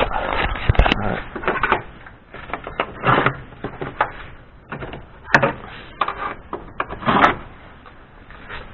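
Irregular clicks, knocks and rustling of hands handling plastic parts and wiring in a car's engine bay.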